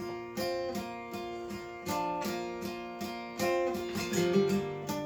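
Instrumental music: an acoustic guitar strumming chords in a steady rhythm, with no singing.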